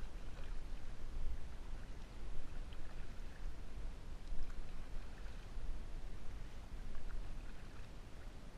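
Small splashes and drips of water from a kayak being paddled, over a steady low rumble.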